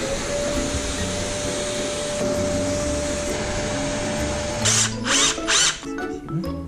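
A canister wet-and-dry vacuum cleaner starts up, its motor tone rising briefly, then runs steadily as it sucks up wood shavings. It stops about four and a half seconds in, and a few short hissing bursts follow.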